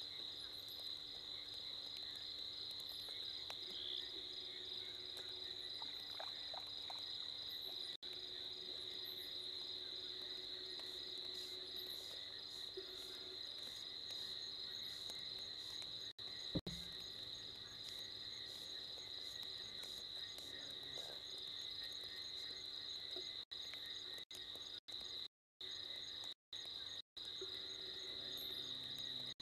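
Steady night chorus of crickets or similar insects, a constant high trilling. There is a single sharp knock about halfway through, and the sound cuts out briefly several times near the end.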